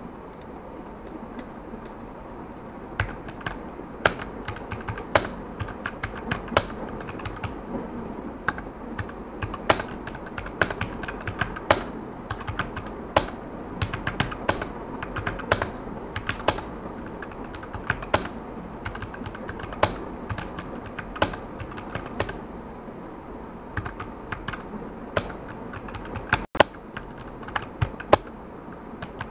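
Typing on an E-Yooso Z686 65% mechanical keyboard with red linear switches: a quick, irregular run of key clacks that starts about three seconds in.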